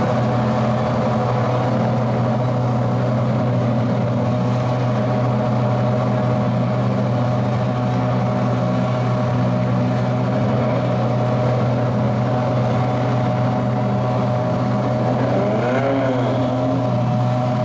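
An engine running steadily at one constant speed, with no revving.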